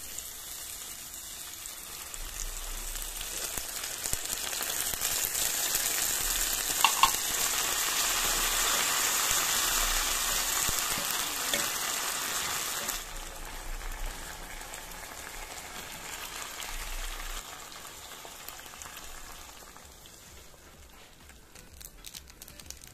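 Onions, garlic and tomatoes sizzling in hot oil in a frying pan, stirred with a wooden spatula, with two short clicks about a third of the way in. The sizzle drops suddenly about halfway through and continues more softly as sardines in tomato sauce cook in the pan.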